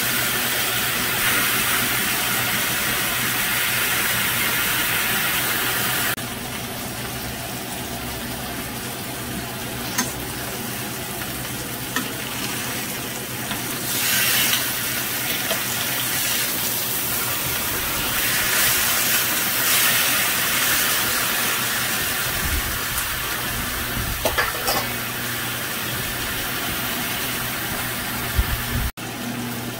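Marinated chicken pieces sizzling in a hot cast-iron grill pan, a steady frying hiss. About halfway through, metal tongs lift and shift the pieces, adding a few clicks and scrapes against the pan.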